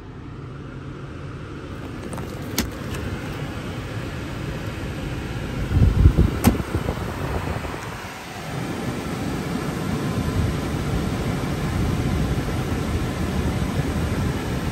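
BMW 335i's 3.0-litre twin-turbo inline-six idling in park at about 1,000 rpm, heard from inside the cabin. Two sharp clicks and a burst of low thumps come around six seconds in.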